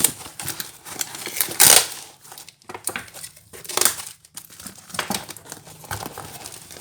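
Plastic packing wrap crinkling and tearing as it is pulled off a package, in irregular rustles with a loud burst about one and a half seconds in and another near four seconds.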